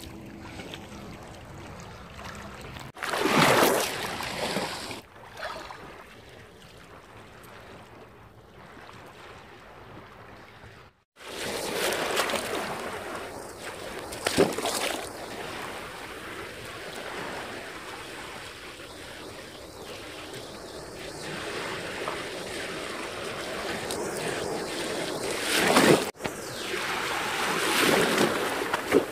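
Small waves in shallow sea water sloshing and washing over a phone held at the water's surface. The water sound swells into several louder splashing surges, with an abrupt break about eleven seconds in and another near the end.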